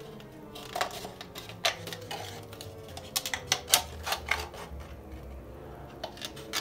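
Scissors snipping: a run of irregular sharp clicks, bunched about three to four seconds in, over background music.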